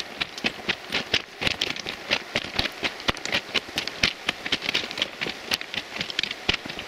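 Footsteps crunching on railway track ballast: a dense, irregular run of crisp clicks and crunches.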